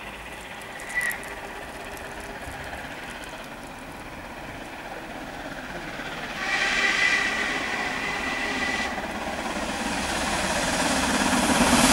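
LMS Black Five steam locomotive sounding a long whistle blast of about two seconds as it comes out of the tunnel, about six and a half seconds in. Its working exhaust and running noise then grow steadily louder as it approaches.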